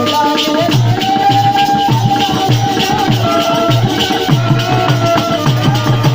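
Live Indian folk music without singing: a steady drum beat under a shaker-like rattle, with a melody of held, level notes.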